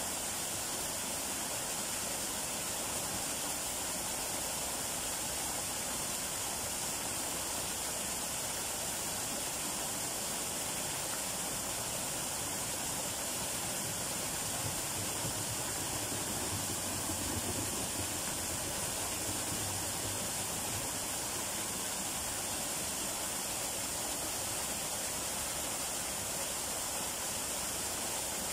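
Small waterfall: thin streams of water falling over a rock face and splashing into a shallow pool, a steady, even hiss.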